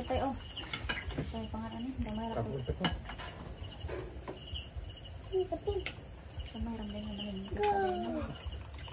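Crickets chirping steadily in the background, with quiet voices from the people at the table and a few sharp clicks of spoons on plates.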